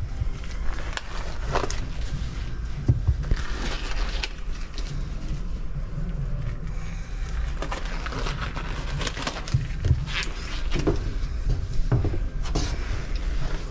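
Sponge being worked by gloved hands to soak up and wring out oily water from a boat's water-tank compartment: irregular knocks and scrapes, with short rustling bursts, over a steady low rumble.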